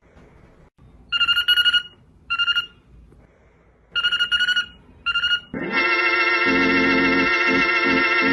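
Electronic telephone ringing: a warbling ring in pairs of one longer and one short burst, heard three times. About five and a half seconds in, loud sustained distorted music cuts in.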